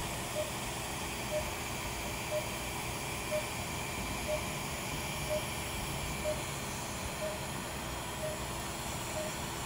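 Operating-room patient monitor giving a short, mid-pitched beep about once a second, the pulse tone following the patient's heartbeat, over a steady hiss of theatre equipment.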